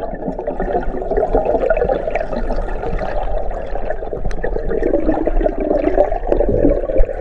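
Underwater bubbling and gurgling from a freediver exhaling a stream of air bubbles, heard underwater, steady throughout.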